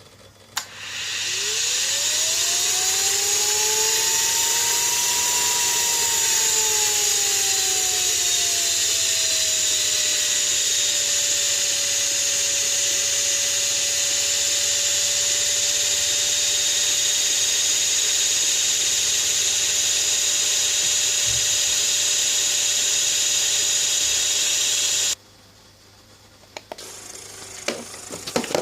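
Small electric pump motor switched on and running with a steady whine and hiss, as a check on a no-start. Its pitch rises as it spins up, sinks and settles lower within about ten seconds, and the sound cuts off suddenly near the end, leaving a few faint clicks.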